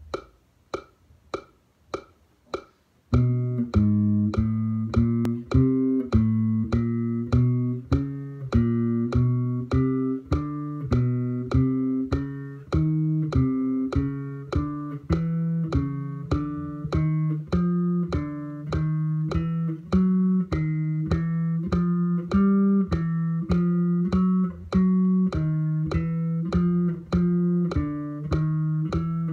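Electric bass guitar playing a fretting-hand finger drill in 4-1-2-3 fingering to steady metronome clicks. The clicks sound alone for about three seconds; then single plucked notes follow the beat evenly, stepping a fret at a time.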